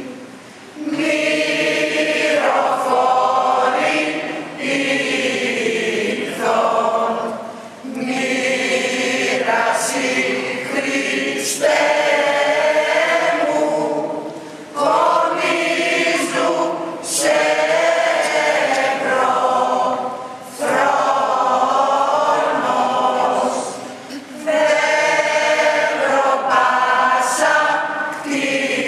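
Church choir of women singing a Greek Orthodox Good Friday (Epitaphios) hymn in Greek chant, in phrases broken by short breaths every few seconds.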